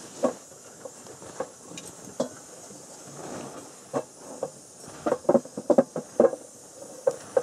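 Chapati dough being slapped and flattened by hand: short dull slaps, a few spaced apart at first, then several in quick succession from about five seconds in, over a faint steady hiss.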